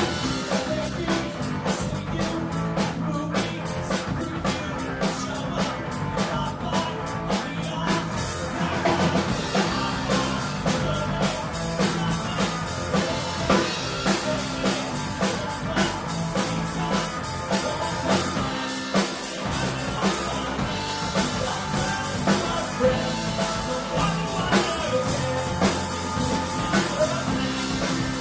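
Live rock band playing pop-punk on drum kit, guitar and bass, with an even drum beat of about four strokes a second through the first eight seconds.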